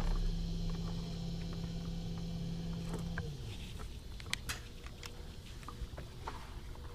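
Steady electric motor hum, a low tone with a higher one above it, that winds down and stops about three seconds in. A few light clicks and taps follow.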